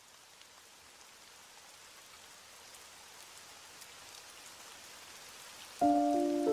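Faint rain that slowly grows louder, with a few light ticks of drops. Near the end, music starts suddenly with several held notes at once.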